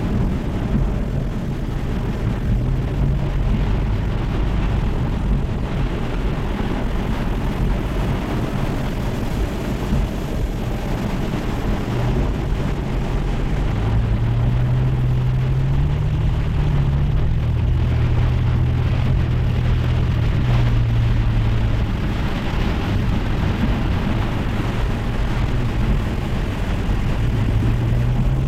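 A motor vehicle's engine running under a steady rushing noise, its low hum rising a little in pitch about halfway through and then settling back.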